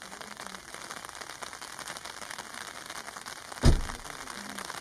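Steady rain falling on leaves, a fine patter of drops. About three and a half seconds in, a single loud thump cuts through it.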